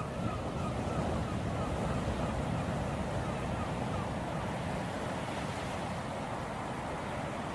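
Ocean waves and surf washing in a steady rush of sea noise that swells a little in the first few seconds and eases towards the end.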